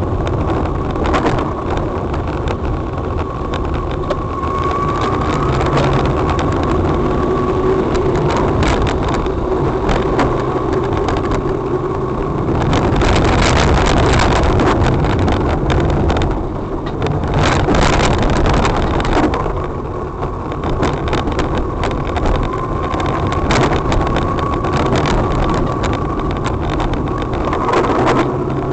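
Car driving on a freshly repaired, uneven road: steady engine and tyre rumble with frequent knocks and rattles from the bumps, getting louder twice about midway.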